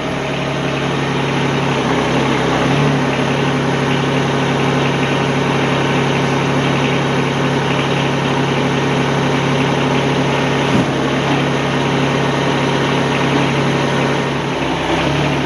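Mahindra eMax 20S compact tractor's diesel engine running at a steady speed.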